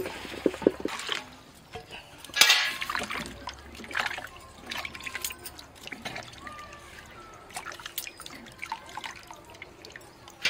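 Peeled white radishes being washed by hand in a steel basin of water: irregular splashing and dripping as they are swished about and lifted out.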